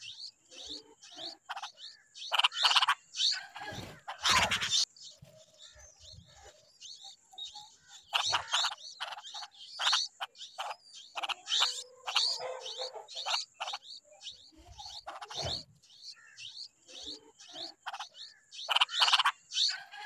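Bulbul nestlings giving begging calls: many short, harsh chirps in irregular bursts, loudest around three to five seconds in and again near the end.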